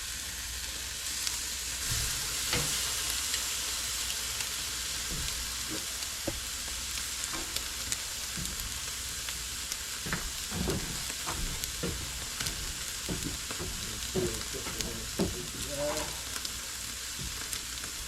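Ribeye steaks searing on a hot charcoal drum grill's grate, sizzling with a steady hiss. Scattered sharp pops and crackles of spitting fat become more frequent in the second half.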